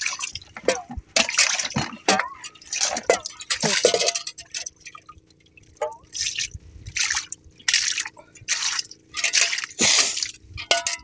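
Water poured from a metal basin splashing and dripping over squid in a plastic crate, in a run of separate splashes: rinsing squid ink off the fresh catch.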